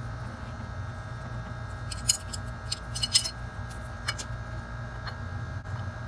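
Steel timing chain and sprocket clicking lightly as the chain is handled and worked onto the gear by hand, with a few sharp metallic clicks between about two and four seconds in. A steady low hum runs underneath.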